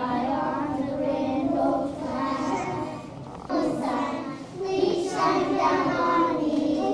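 A group of young children singing together, holding notes through phrases with short breaks between them.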